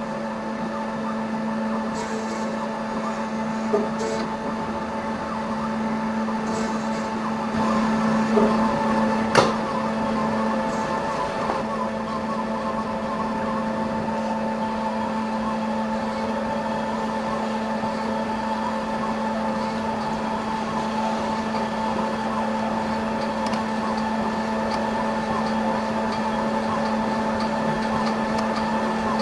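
Plus Mill S5 five-axis dental milling machine running steadily, its spindle and bur cutting a zirconia disc: a steady hum with several fixed tones above it and light scraping, with a few small ticks and one sharp click about nine seconds in.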